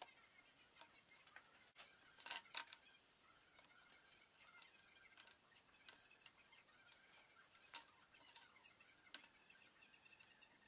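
Near silence broken by a few soft clicks and knocks, loudest a couple of seconds in and again about three quarters through, as plastic spring clamps are set on a glued wooden case. Faint high chirping runs underneath.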